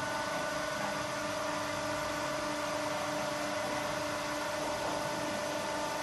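Automatic mattress compressing and packing machine running, a steady mechanical hum with several constant tones.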